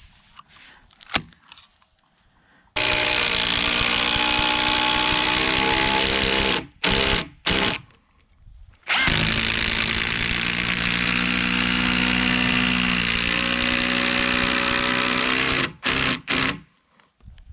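Power drill driving long construction screws into log timbers: the motor runs under load in two long pulls, about four and then seven seconds, each followed by short trigger blips as the screw is seated.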